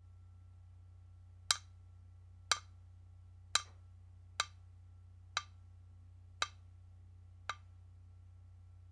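Seven sharp wooden knocks, about one a second and fading slightly toward the end, over a low steady hum.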